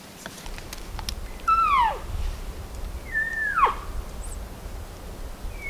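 Three cow elk calls: short mews that hold a high note briefly, then drop sharply in pitch, about a second and a half apart.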